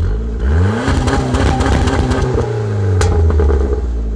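A 2005 PT Cruiser GT's turbocharged 2.4-litre four-cylinder is blipped through its stock exhaust. The revs climb about half a second in, hold high for a couple of seconds, then fall back to idle, with a sharp snap as they drop.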